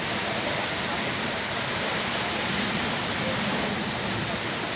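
Heavy rain falling steadily in a windstorm, an even, unbroken rush of noise.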